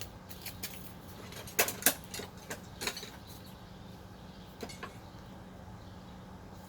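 Sharp metal clinks of tools and brake parts being handled while a car's rear brake is taken apart: a cluster of clinks from about a second and a half to three seconds in, then two more near the five-second mark.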